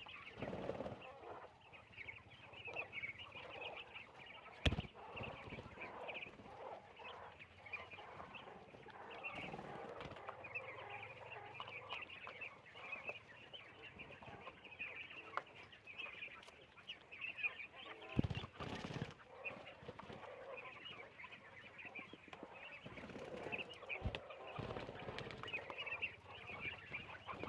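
A large flock of farm poultry calling all at once: a dense, continuous high-pitched chatter of many overlapping calls, with a few sharp knocks, the loudest about 5 s and 18 s in.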